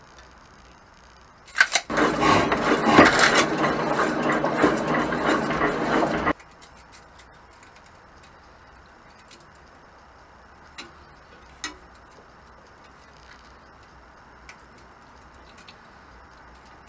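Rusty steel flat bar scraping and grating against the metal of an old power hacksaw's vise and bed for about four seconds, starting and stopping abruptly, with a ringing edge. After that, only a few light clicks.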